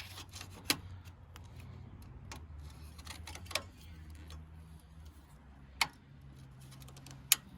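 Scattered sharp clicks and scrapes of metal panel clip pliers working against a plastic trim clip, trying to get their jaws underneath it, with the loudest clicks about six and seven seconds in. A faint low hum runs underneath.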